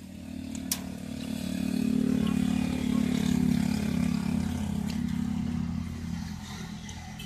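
An engine-driven vehicle passing by: a low engine hum that grows louder over the first couple of seconds, peaks, then fades away. A single sharp click sounds about a second in.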